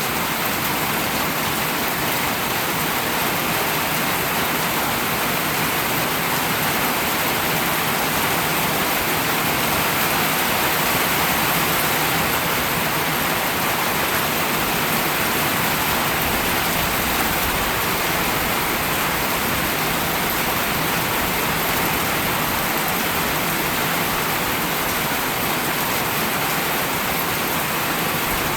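Steady heavy rain falling, an even rushing hiss of rainfall without a break.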